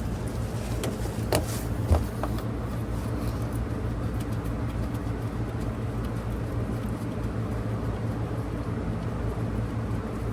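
A steady low mechanical hum, like an engine running, with a couple of sharp clicks about one and a half and two seconds in.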